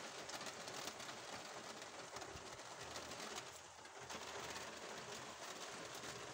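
Steady rain pattering on a wooden-framed roof window, with a close spatter of drops hitting the glass.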